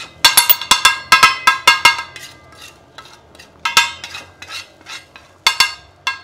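Metal spatula clanging against a metal cooking pan in sharp, ringing strokes: a quick run of about eight in the first two seconds, then a few scattered strikes.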